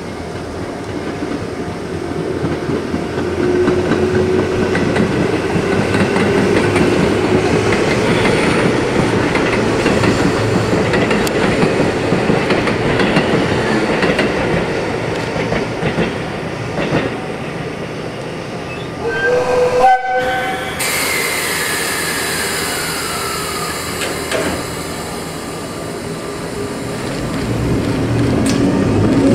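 Train moving slowly over points, with steady rail and wheel noise that grows louder a few seconds in. About two-thirds of the way through there is a short horn blast, and just after it a whine that falls in pitch.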